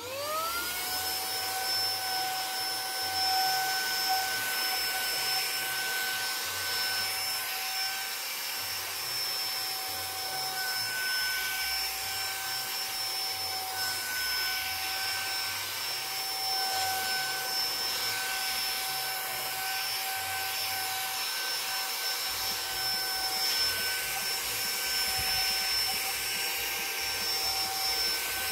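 Saker mini cordless handheld vacuum's brushless motor switching on and spinning up within a second to a steady high whine with a rush of air, as it vacuums a wooden game board.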